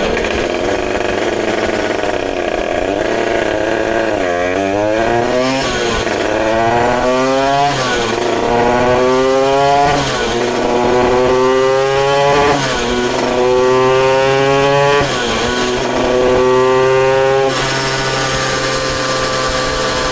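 Tuned Derbi Euro 3 two-stroke moped engine on a roller dyno, first run: it starts at a low steady speed, then the revs climb in about six rising pulls as it is run up through the gears, each pull ending in a short drop at the shift. Near the end it drops back to a steady lower speed. The rider feels it is running rich at the top end.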